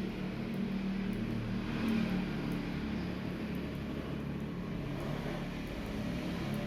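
Laptop keyboard keys being pressed one at a time during a key test, faint scattered clicks, over a steady low hum.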